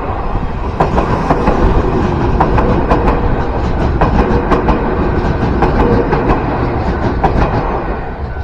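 Keio Inokashira Line train running past at close range, its wheels clicking and clacking over the rail joints above a steady rumble.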